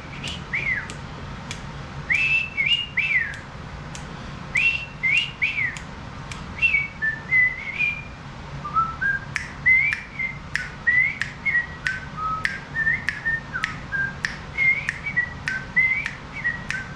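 A man whistling a tune through pursed lips: a run of short notes that slide up and down, with sharp clicks scattered between them.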